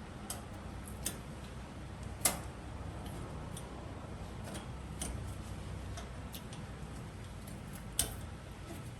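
Irregular light clicks and taps, about eight of them with the sharpest about two seconds in and another near the end, over a steady low hum.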